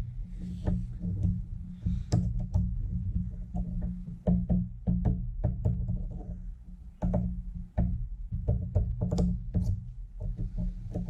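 Music with a steady low bass and frequent sharp knocks.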